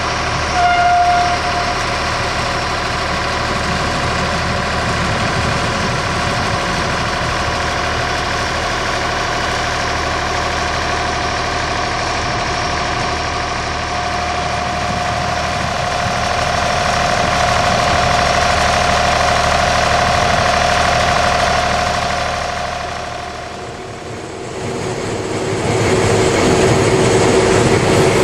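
Diesel-electric locomotive engine of an FS D 345 / D 445 pair running at idle with a steady hum and whine. A brief high tone sounds about a second in; around 24 seconds the sound dips and then returns with a different pitch.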